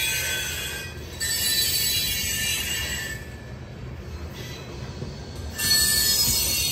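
Freight train cars rolling past with high-pitched wheel squeal over a low rumble of the wheels. The squeal comes and goes: it breaks off about a second in, returns, fades out around three seconds, and comes back loud near the end.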